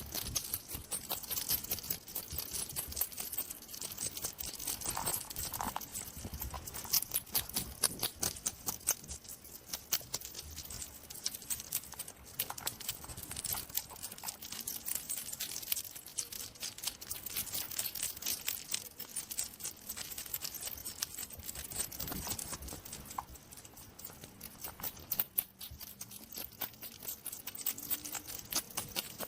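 Hedgehog chewing: a dense, irregular run of small crunching clicks that keeps going throughout.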